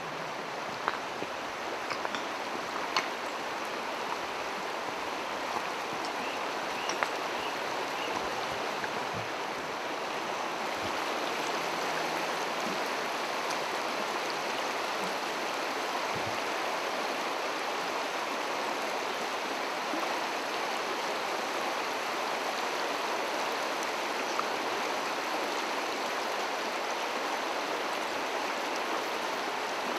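Tohickon Creek running shallow over rocks and riffles: a steady rushing of water that grows a little louder about a third of the way in. A few sharp clicks sound in the first several seconds.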